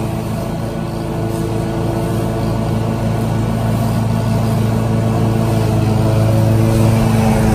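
Ferris Z1 36-inch stand-on mower's engine running steadily under mowing load, a constant low drone that holds its pitch.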